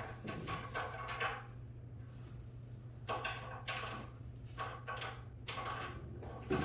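A series of short, dry scraping or rubbing strokes in several quick groups, over a steady low hum.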